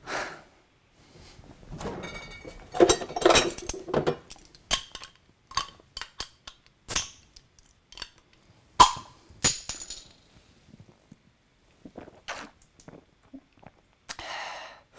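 Glass bottles clinking and knocking at a refrigerator as one is taken out and its cap worked open: a string of sharp clinks and clicks, some with a brief ringing, the loudest a little before halfway through.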